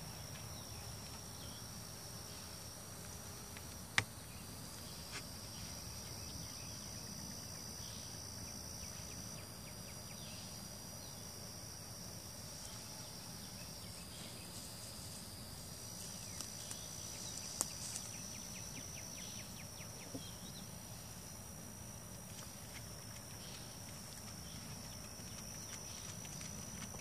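Insects trilling in the surrounding vegetation: several steady high-pitched trills at slightly different pitches that overlap, break off and start again, over a low hum. A single sharp click comes about four seconds in, and a few light ticks come about two-thirds of the way through.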